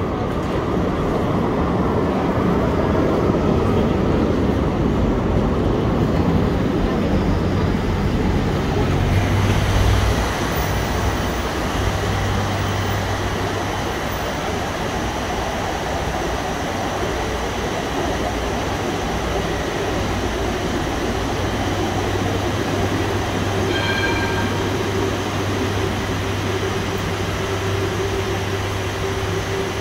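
Electric tram rolling through a station for about ten seconds, then a steady low electrical hum from a tram standing at the platform. A short beep sounds about two-thirds of the way through.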